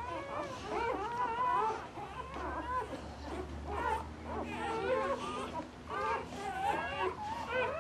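Newborn Bouvier des Flandres puppies, about two hours old, whimpering and squealing, several high, wavering cries overlapping almost without a break.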